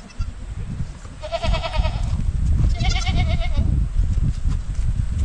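Sheep or goats of a mountain flock bleating: two wavering bleats, each just under a second long, about a second in and near the middle, over a steady low rumbling noise.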